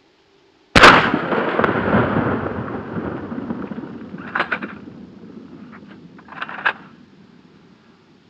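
A single 12-gauge Remington 870 shotgun blast firing 00 buckshot, under a second in, followed by a long echo that trails off over several seconds. A few fainter sharp cracks come about four and six and a half seconds in.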